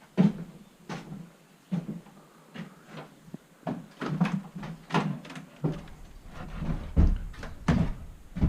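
Rummaging through stored equipment: a string of irregular knocks, clunks and clatters as boxes and objects are picked up, moved and set down.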